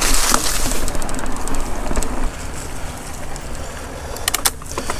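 Mountain bike rolling along a dirt singletrack: a steady rush of tyre and wind noise that drops after about two seconds, with a few sharp rattles from the bike near the end.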